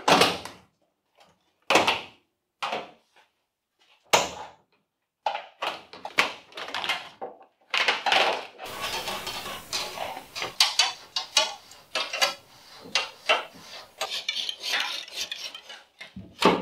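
Hand work on a stripped car body: a few separate sharp clacks, then from about five seconds in a dense run of clattering and scraping.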